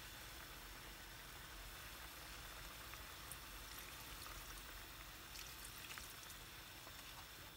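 Milk pouring from a carton into a pan of simmering cream sauce: a faint, steady pour over the pan's low bubbling, with a few small clicks.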